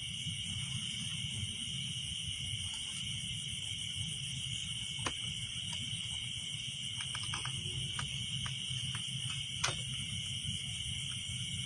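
Chorus of night insects trilling steadily and high-pitched over a low rumble, with a few sharp clicks, the loudest about ten seconds in.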